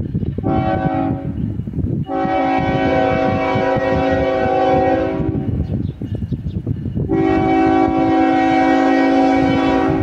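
Diesel freight locomotive's multi-chime air horn sounding a chord in three blasts: a short one about half a second in, then two long ones of about three seconds each, the last running on past the end. A low rumble from the approaching train goes on underneath.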